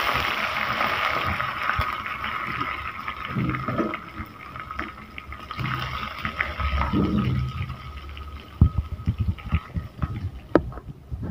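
Curry leaves and tempering spices sizzling and crackling in hot coconut oil in a small pan, easing off about eight seconds in. Near the end, a metal spoon clinks and scrapes against the pan as it is stirred.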